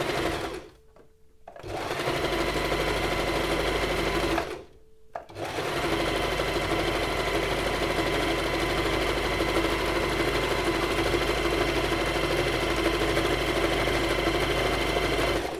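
Singer Tradition 2282 domestic sewing machine running and stitching. It stops briefly twice in the first few seconds, then runs steadily until it stops at the end.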